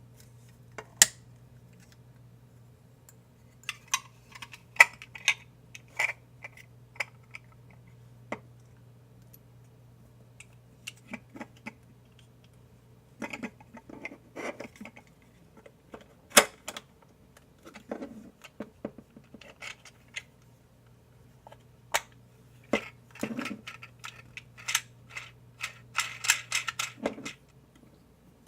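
Small plastic kit parts and packaging being handled: irregular clicks and taps, with a busier run of crinkling and rattling near the end, over a faint steady hum that cuts off shortly before the end.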